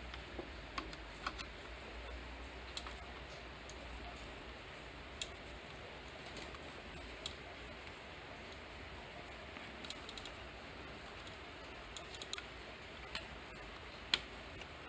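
Scattered light clicks and ticks, about ten at irregular intervals, from insulated wires and crimp terminals being handled and fitted against a cut-off saw's motor housing, over a faint steady hiss and low hum.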